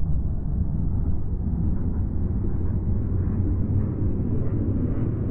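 Deep rumbling riser sound effect that grows steadily brighter as it builds.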